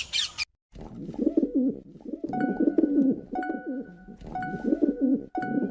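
Pigeon cooing: a run of low, wavering coos, repeated again and again. A faint short tone sounds about once a second underneath.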